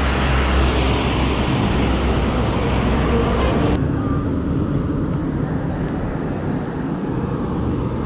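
Steady noise of highway traffic heard from a moving bicycle, with a strong low rumble. About four seconds in it cuts suddenly to a quieter, duller traffic noise.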